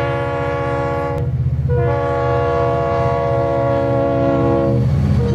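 Train horn sounding twice, first a short blast and then a longer one of about three seconds, over the steady low rumble of the running train.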